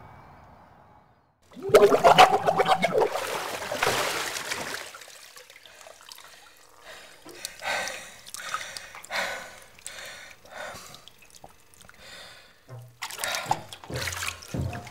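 Water splashing, with a sudden loud splash just under two seconds in after a moment of near silence. It is followed by irregular sloshing and trickling in short bursts, which pick up again near the end.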